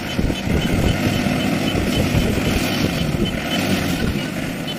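Diesel engine of a Kubota combine harvester running steadily, a dense mechanical rumble. A faint, interrupted high whine sits over it.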